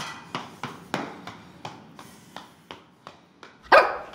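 Small dog yapping: short, sharp yaps about three a second, with one much louder yap near the end.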